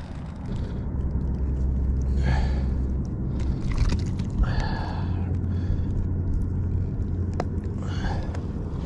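A low, steady engine-like rumble that steps up slightly in pitch a few seconds in, with a few faint breathy vocal sounds over it.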